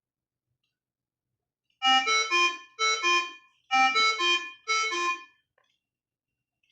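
Mindray SV600 ventilator's alarm speaker playing a ten-tone alarm melody in groups of three and two notes, the pattern of a high-priority medical alarm, sounding while the ventilator's power module firmware is being upgraded.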